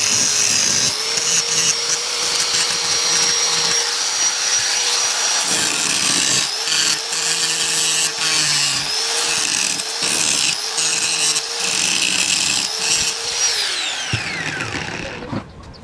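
Small electric power-tool motor running fast with a high whine, its sound changing in repeated pulses as it is loaded and eased. Near the end it winds down with a falling whine and stops.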